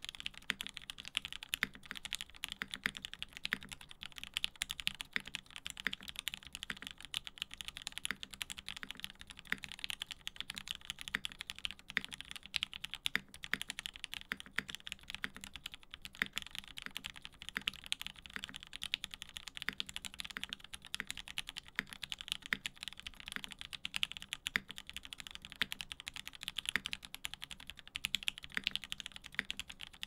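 Steady fast typing on a Lyn Whale polycarbonate-case custom mechanical keyboard with lubed Gateron Ink Black linear switches on an aluminium plate and GMK ABS keycaps. The keystrokes are dense and come without pauses.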